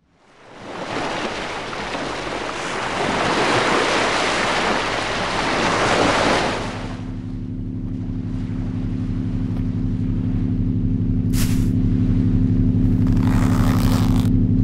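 Film sound design: a loud rushing noise swells in at the start and runs for about seven seconds, then gives way to a steady low drone of several held tones. The drone is crossed by a short hiss and then a longer one near the end.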